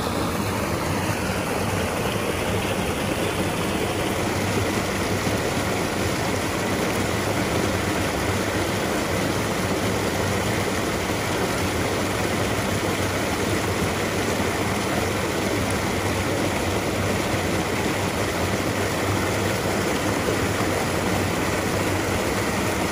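Small waterfall rushing, a loud, steady roar of water pouring over rocks.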